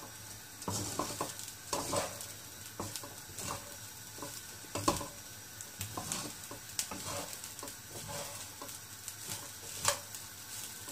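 Wooden spatula stirring and tossing cooked rice in a non-stick wok, with irregular scrapes and taps against the pan over a steady frying sizzle. The loudest knocks come about halfway through and near the end.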